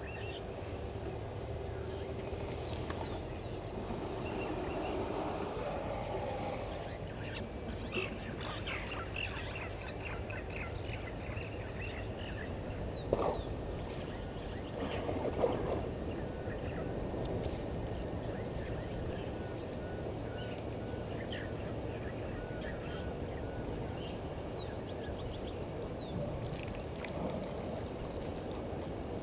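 Bush ambience at dusk: an insect's high chirp repeats about once a second over a steady hiss, with scattered bird calls. Two brief louder noises come about halfway through.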